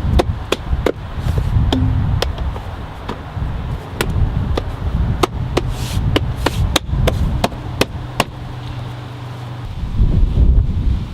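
A run of sharp knocks and clicks, about two a second, stopping about eight seconds in, over a low rumble that grows louder near the end.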